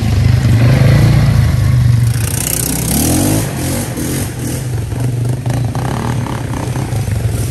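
ATV engine running with a steady low drone, getting a little quieter about two seconds in.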